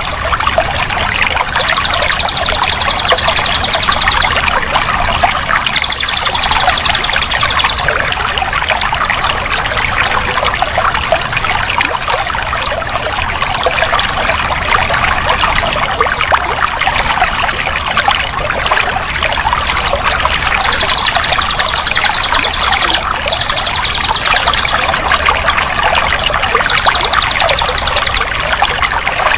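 Water flowing and pouring steadily, with a continuous splashing rush. A high, rapid trill comes and goes over it in several bursts of two to three seconds each.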